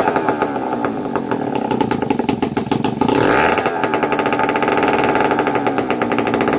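Small Sachs Stamo two-stroke stationary engine running with no exhaust fitted, a cloth held over its exhaust port to muffle it. The firing is uneven, quieter for a couple of seconds and then picking up again about three seconds in.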